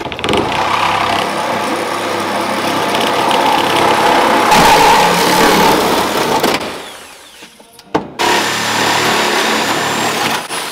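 Handheld reciprocating saw running hard, cutting the windshield out of the truck cab along the glass edge, because the proper windshield-removal blade isn't at hand. It runs for about seven seconds, stops, a sharp knock follows, and then it runs again for a couple of seconds.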